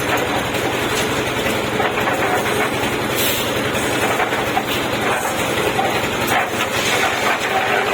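Concrete mixer running: a steady engine drone with continuous rattling and clatter from the machine.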